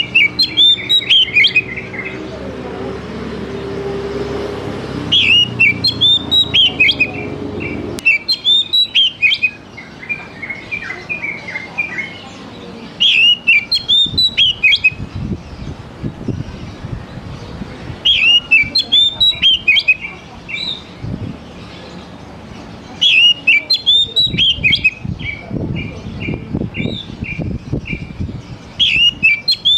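Oriental magpie-robin singing loud short phrases about every four to five seconds. Each phrase is a quick tumble of high whistled notes followed by a run of evenly repeated notes.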